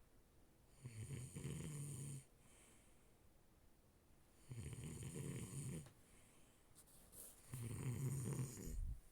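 A person snoring: three snores, each a little over a second long, about three and a half seconds apart.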